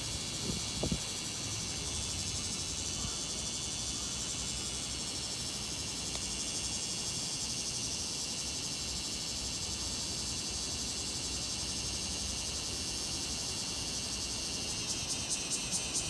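Bear cicada (kumazemi, Cryptotympana facialis) singing: a dense, steady high-pitched buzzing that breaks into a rapid pulsing of about four beats a second near the end.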